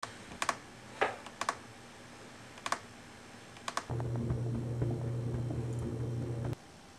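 Sparse clicks of typing on a computer keyboard, several in quick pairs. About four seconds in, a steady low hum starts and then cuts off suddenly near the end.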